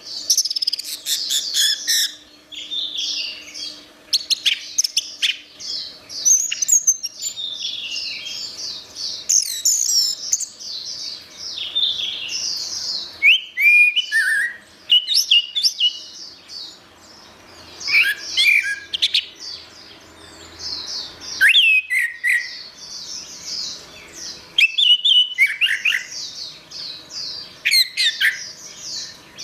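Orange-headed thrush singing a long, varied, chattering song of rapid high notes and short whistled glides, with only brief pauses.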